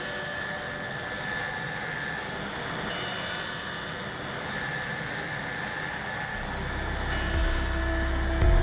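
HOMAG BMG 311 Vantage CNC router running, a steady machine noise with a held high whine. A deep low rumble builds in from about six seconds in and grows louder near the end.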